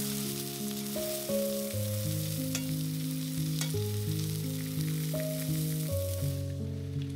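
Food sizzling in oil in a frying pan, with two light clicks of a utensil against the pan; the sizzle cuts off about six seconds in. Background music with steady held notes plays throughout.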